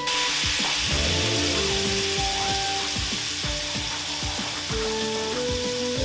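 Roux-thickened pan sauce sizzling and bubbling in a cast iron skillet on the stove, a steady hiss that is a little louder in the first few seconds.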